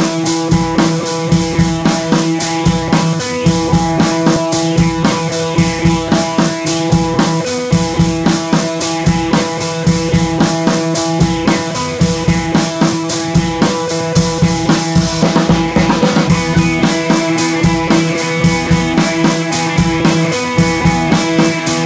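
Background music with a steady rock drum beat and sustained instrument tones.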